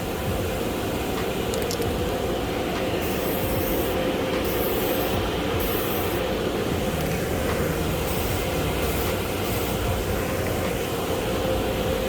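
Steady loud mechanical noise with a constant hum, and a few short hissing bursts near the middle.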